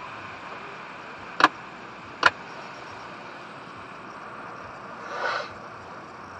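Car wash water spray hitting the windshield and body, heard from inside the car: a steady hiss, with two sharp knocks about a second apart, the first about a second and a half in, and a louder gush of spray about five seconds in.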